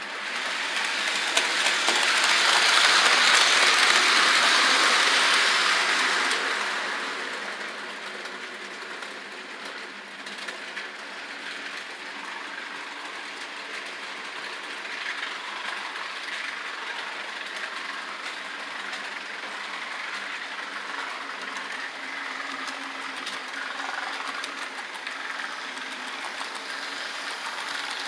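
HO-scale model train running on the layout's track, its small electric motor and wheels making a steady running noise. The sound swells loud for a few seconds near the start, then goes on at a lower, even level.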